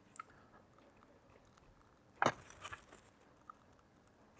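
Faint clicks from handling the Tefal ActiFry's small stirring-arm motor as its case is pried open, with one sharper click about two seconds in.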